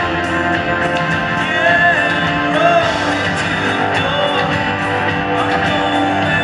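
Live rock band playing, with strummed guitar standing out in a full, steady mix.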